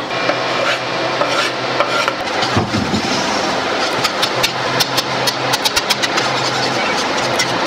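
Plant-based ground meat with diced peppers and onions sizzling in a stainless steel frying pan while a slotted spatula stirs and scrapes it, with many sharp clicks of the spatula against the pan from about halfway on. A steady low hum runs underneath.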